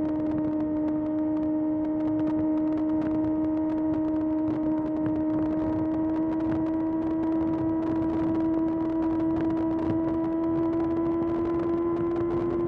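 Kawasaki ZX6R's 636 cc inline-four engine running at a steady high pitch under way, its note creeping slowly upward as the bike gently gathers speed.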